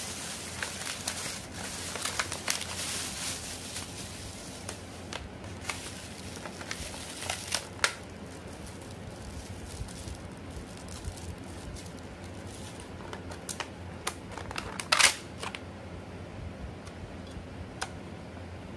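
Thin plastic carrier bag crinkling and rustling as it is pulled off a clear plastic takeaway box, then scattered clicks and crackles of the box's plastic being handled, with one loud sharp crack about three-quarters of the way through as the clamshell lid is popped open.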